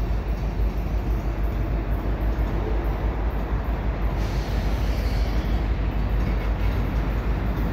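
Freight train of open-top hopper cars rolling very slowly past, a steady rumble of wheels and cars, with wind buffeting the microphone.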